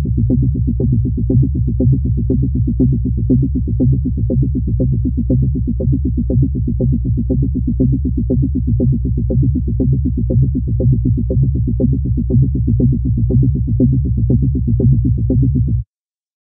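Background electronic music with steady synthesizer bass tones and a regular pulsing beat, stopping abruptly near the end.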